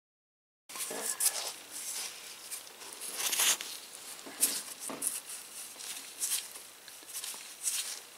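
Gloved hands handling engine parts at a bare cylinder: irregular rustling with scattered light clicks and scrapes, starting suddenly just under a second in.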